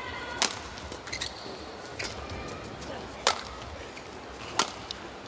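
Badminton rackets striking a shuttlecock in a rally: about five sharp cracks a second or so apart, three of them much louder, over a steady arena crowd murmur.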